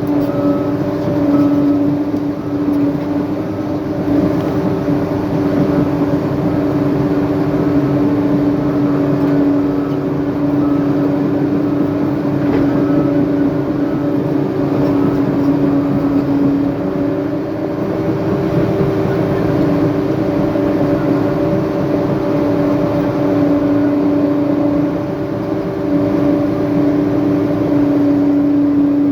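Diesel engine of a heavy earthmoving machine running steadily, a constant hum with a few small dips in level.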